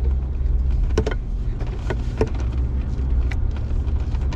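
Steady low drone of a Jeep Gladiator's 3.0-litre EcoDiesel V6 turbodiesel crawling over a rutted dirt trail, heard from inside the cab. A few sharp knocks and rattles come through, mostly between one and two and a half seconds in.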